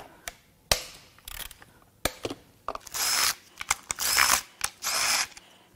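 Cordless impact wrench firing in three short bursts, about half a second each, as it breaks loose the intake manifold bolts on a Toyota 2AR-FE engine. A few sharp clicks come first.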